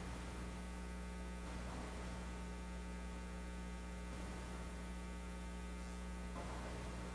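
Steady electrical mains hum with a stack of overtones over a faint hiss, carried on an audio feed with no programme sound.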